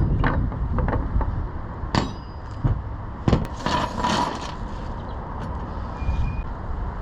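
Scattered sharp knocks and clanks of tools and metal mounting hardware being handled after drilling, with a short scrape about four seconds in, over a steady low rumble.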